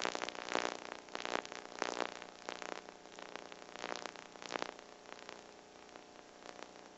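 Faint static crackles and hiss over a low steady hum, the crackles dying away about five seconds in.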